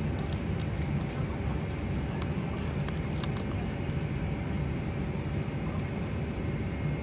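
Steady low rumble of cabin noise inside a Boeing 747-400 airliner, with a faint constant hum and a few faint ticks; the seatback safety video's soundtrack is too quiet to be heard over it.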